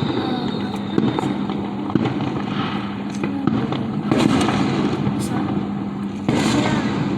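Fireworks going off: a run of bangs and crackling, with sharper bangs about a second in, around four seconds and just after six seconds, over a steady low hum.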